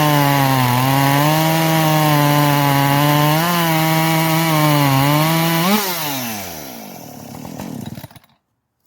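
Husqvarna 545 Mark II 50cc two-stroke chainsaw running at full throttle while cutting through wood, its pitch dipping and recovering a few times under load. About six seconds in it revs briefly, then winds down and stops just before the end.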